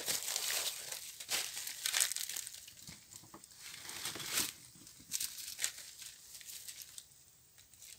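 Dry leaf litter crackling and rustling in irregular bursts as a wire-mesh snake trap lying in it is handled. The sound thins out about seven seconds in.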